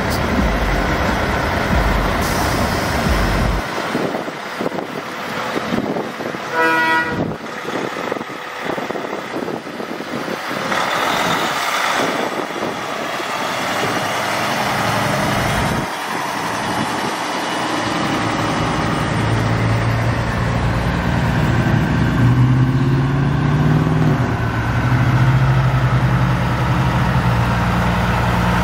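Semi trucks' diesel engines running as the trucks drive past, with one short horn blast about a quarter of the way in. In the second half a truck engine's low drone grows stronger and rises in pitch as it accelerates.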